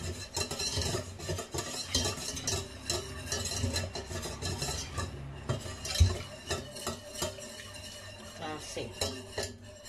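Wire whisk stirring a béchamel in a stainless steel saucepan as milk is worked into the roux, its wires scraping and clinking against the pot in quick, repeated strokes. There is a louder knock about six seconds in.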